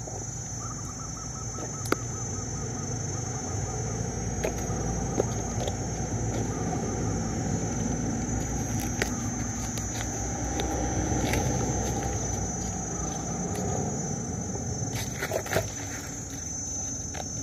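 Dry leaf litter rustling and crackling as hands clear the ground and set a cloth-covered bird cage down, with scattered sharp clicks. A steady, high-pitched insect drone runs underneath.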